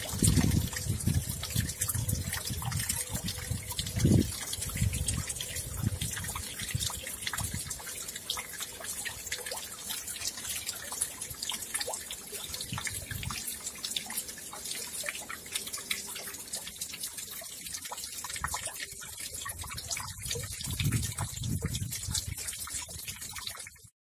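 Steady rain falling, a dense patter of drops on the wet ground and puddles, with occasional low rumbles on the microphone. The sound cuts off abruptly just before the end.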